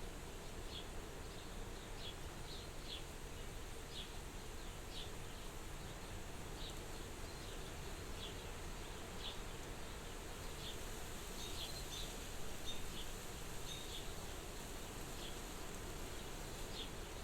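Soft, steady wind at a window, with short high chirps repeating irregularly about once a second.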